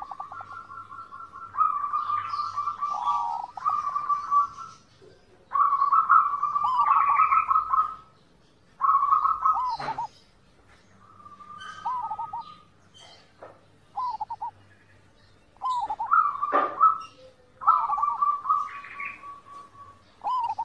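Zebra dove (perkutut) cooing: repeated phrases of rapid, staccato trilled notes, each a second or two long, with short pauses between them. Two sharp clicks cut in, about halfway through and near the end.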